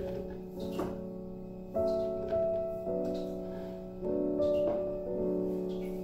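Background piano music: slow, held chords that change about once a second.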